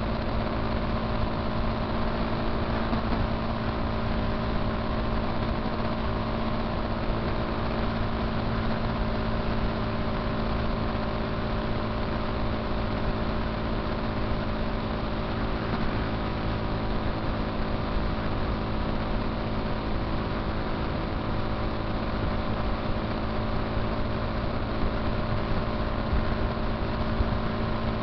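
Motorcycle engine running at a steady cruising speed, a constant engine hum under a steady rush of wind and road noise.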